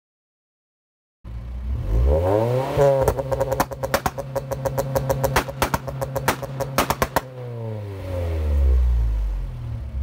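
Honda Civic coupe's four-cylinder engine revved while parked: it comes in about a second in and climbs quickly to high revs, holds there for about four seconds with a rapid run of sharp cracks, then drops, swells once more and falls back toward idle.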